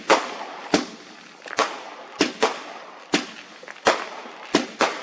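Fireworks going off: about nine sharp bangs at irregular intervals, each trailing off in an echo.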